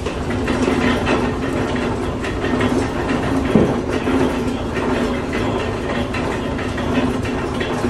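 Steam-powered cider mill machinery running, a steady mechanical clatter over a constant low hum.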